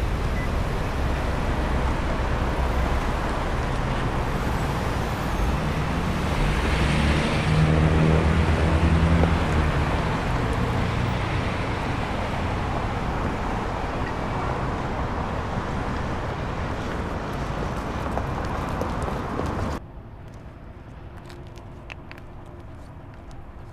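Steady road traffic noise, with one vehicle's engine passing close and loudest about eight or nine seconds in. Near the end it cuts off suddenly to a much quieter background with a few faint taps.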